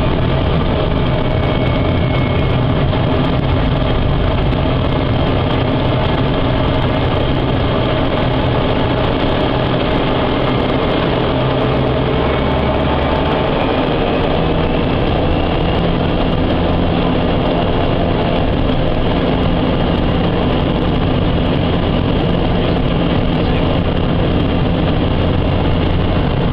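Single-engine light aircraft's propeller engine running at taxi power, heard from inside the cabin: a loud, steady drone whose pitch shifts a little about halfway through.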